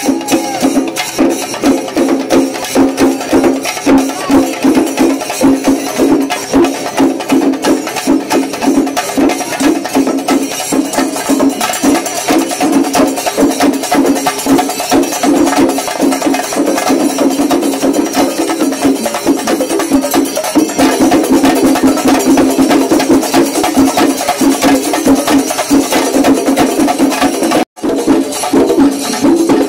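Chenda melam: Kerala temple drums beaten with curved sticks, playing a dense, fast, unbroken stream of strokes. The sound is broken by a sudden brief cut near the end.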